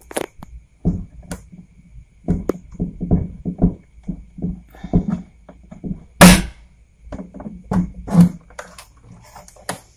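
Irregular handling knocks and thumps, one sharp loud knock about six seconds in.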